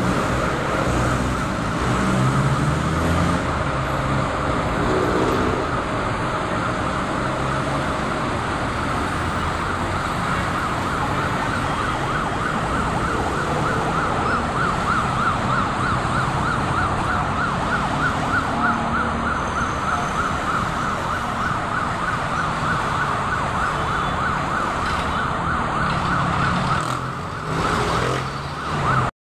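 An emergency vehicle's siren warbling rapidly and continuously over the steady rumble of passing road traffic.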